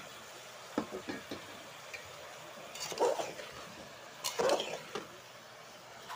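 Steel spoon stirring chunks of potato and pumpkin in a metal pressure cooker, scraping against the pot's side and bottom. There are a few light clinks about a second in, longer scraping strokes about three and four and a half seconds in, and a short clink near five seconds.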